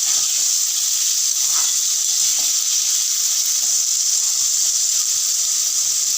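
Chopped potatoes sizzling steadily as they fry in hot oil on high heat, with a few faint crackles.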